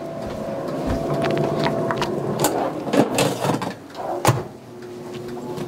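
Air fryer running with a steady whirr, then several sharp clicks and knocks from about halfway through as its basket is handled.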